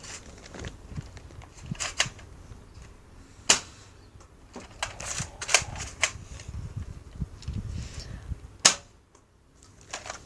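Toy Nerf shotgun firing darts: several sharp pops, the loudest about three seconds in and near the end, with fainter clicks between them.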